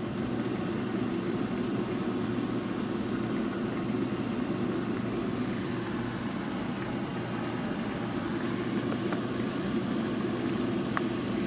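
A steady low hum, like a fan or small motor running, with a faint tick or two near the end.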